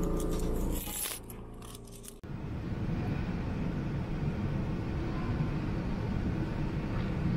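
Inside a Hankai Tramway 'Sakai Tram' low-floor car: a few light clicks and rattles, then, a little over two seconds in, a sudden change to the tram cabin's steady low rumble and hum.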